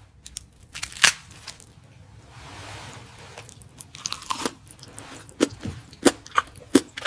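Close-miked eating sounds: a person chewing food with sharp crunchy bites, sparse at first and coming in quicker succession in the second half.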